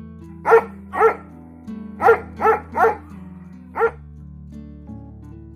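A dog barking six times: two barks, a short pause, three quick barks, then one last bark, over background guitar music.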